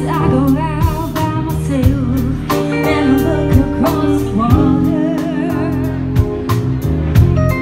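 Live pop-soul band playing. A woman sings with vibrato over a drum kit, keyboards and low bass notes.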